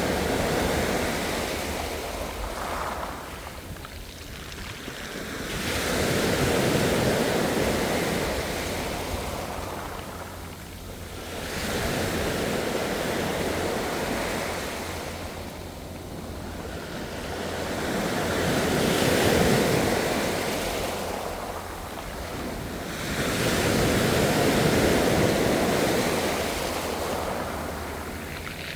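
Ocean waves breaking and washing in, swelling and falling back in a slow rhythm of about one wave every five to six seconds.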